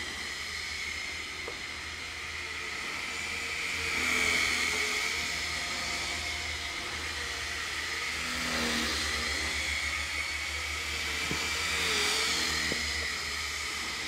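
MJX F647 micro single-rotor, fixed-pitch RC helicopter in flight: a steady high-pitched electric motor and rotor whine. It wavers in pitch and swells louder about four, nine and twelve seconds in as the throttle changes.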